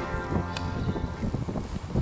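A background music track cutting off, followed by low rumbling outdoor noise with a few faint clicks.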